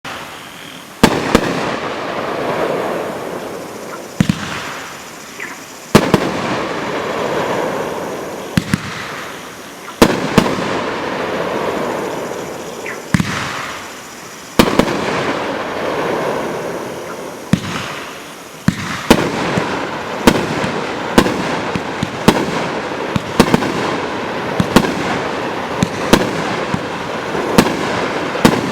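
A 500-gram, 21-shot consumer fireworks cake firing its shots. Each shot is a sharp bang followed by a long, noisy, decaying tail. The shots come every few seconds at first and quicken to about one a second in the second half.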